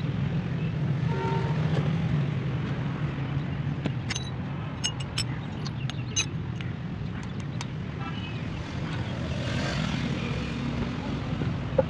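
A steady low engine drone, with a run of light, sharp metallic clicks and taps from about four to eight seconds in.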